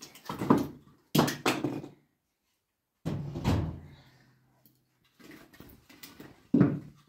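Pieces of firewood clunking against a sheet-metal wood stove as they are pushed in through its door: a series of about five knocks, the last near the end among the loudest.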